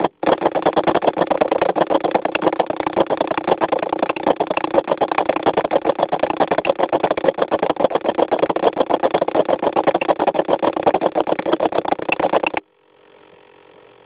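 Electric RC model plane's motor and propeller running fast as a loud, rapid buzz while the plane sits still. It cuts off abruptly about a second and a half before the end.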